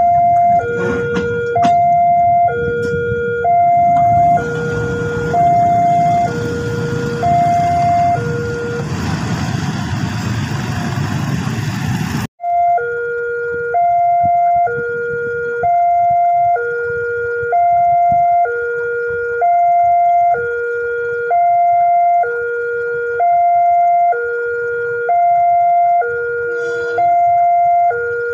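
Railway level-crossing warning alarm sounding a two-note electronic chime, alternating a higher and a lower tone about every three-quarters of a second. For the first twelve seconds it plays over the rumble and clatter of a freight train's empty container flat wagons rolling past on the rails. That train noise cuts off suddenly, leaving the alarm alone.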